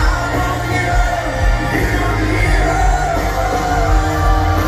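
Live rock band playing with a singer's vocal, amplified through a large outdoor PA and heard from far back in the audience, bass heavy.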